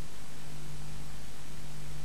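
Steady hiss of rain falling, with a low steady hum underneath.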